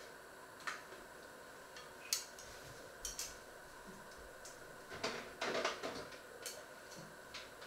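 Light kitchen handling noises: a few scattered clicks and knocks, and a short clattery rustle about five seconds in.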